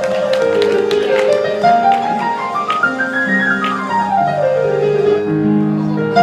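Solo piano playing sweeping runs of notes: a run cascading down, a run climbing back up, and another falling run over held bass notes, settling into sustained chords near the end.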